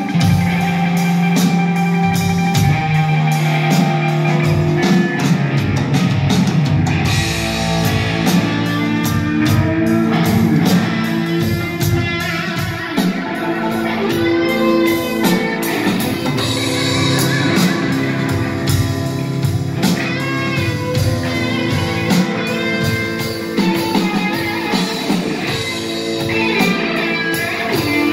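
Two electric guitars, a headless guitar and a Stratocaster-style guitar, jamming together through amplifiers in a rock style, with notes shifting quickly throughout.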